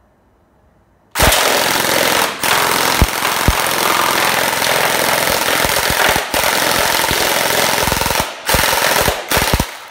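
Jinming Gen 9 gel blaster with a CNC gearbox, run on an 11.1 V battery, firing full-auto: one long burst of several seconds with a couple of brief pauses, starting about a second in, then a few short bursts near the end.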